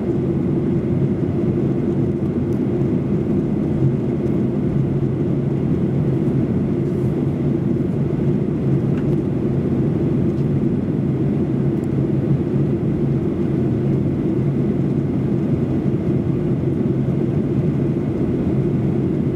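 Steady cabin noise of a Boeing 737-800 with CFM56 turbofans, heard from the rear economy cabin on descent toward landing: a constant engine and airflow drone with a steady low hum.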